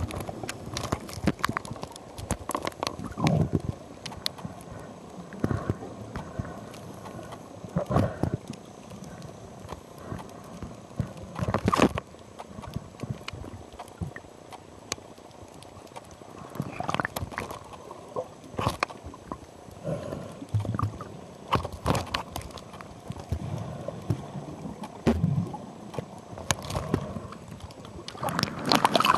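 Irregular clicks and knocks at uneven intervals over a low rumbling noise, growing louder near the end.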